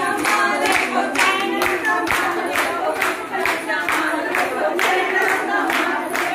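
A group of women singing together, with hands clapping in time at about two claps a second.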